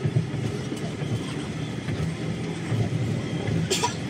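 Low, steady rumble of a moving vehicle heard from inside it, with a brief hiss near the end.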